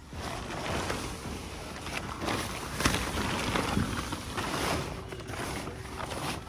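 A fabric car cover rustling and crinkling as it is dragged across a car's hood and roof, in uneven crumples that are loudest about three seconds in.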